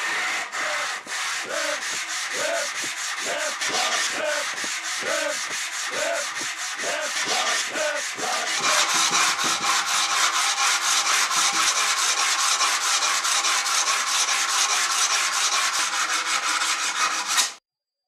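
A steel knife blade rubbed back and forth by hand on abrasive paper stretched over a block in a bench vise, in even strokes about two a second. A bit under halfway through the strokes turn quicker and harsher, then stop abruptly near the end.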